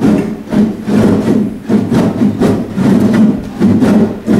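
Acoustic guitars played together, strummed chords in a steady walking rhythm of about two strokes a second.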